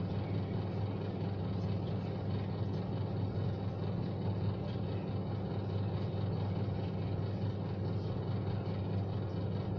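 Steady low background hum over even noise, unchanging throughout, with no distinct handling sounds.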